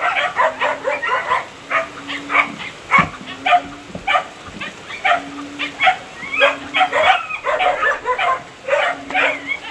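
Many short animal cries in quick succession, several a second throughout, with a low steady tone that comes and goes.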